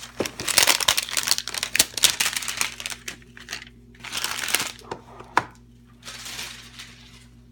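Plastic wrapping being torn off a basketball card hanger box and crumpled, crackling in dense bursts, with a sharp click about five seconds in.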